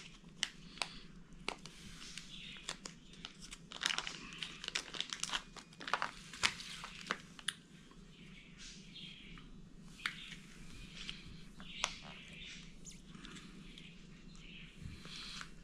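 Small plastic battery case and packaging being handled and opened: irregular crinkling with many sharp clicks and taps.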